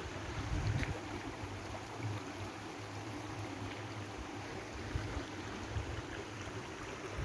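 Waterfall and stream water rushing steadily, with an uneven low rumble beneath it.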